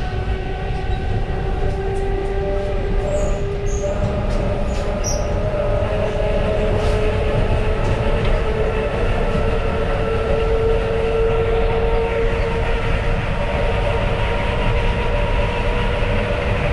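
Suburban electric train running at speed, heard from inside the carriage: a steady rumble of wheels on track with whining tones from the traction motors, their pitch shifting a few times.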